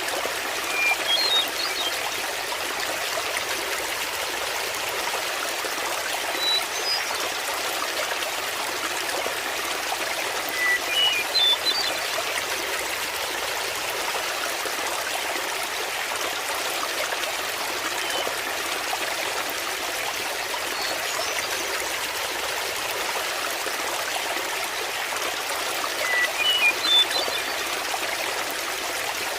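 Small waterfall splashing and trickling steadily into water. A few short high chirps sound over it about five times.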